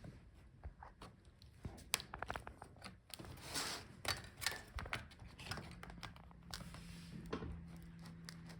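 Small clicks and rustling from laptop internals being handled, with a quick run of clicks about two seconds in, then scraping and crinkling: the cooling fan's cable being unplugged and the heatsink-and-fan assembly lifted out.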